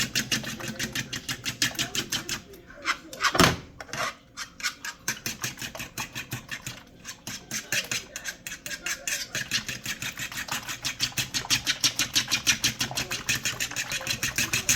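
A cooking utensil scraping and clicking rapidly against a skillet as eggs are scrambled, about five quick strokes a second, with one louder knock about three and a half seconds in.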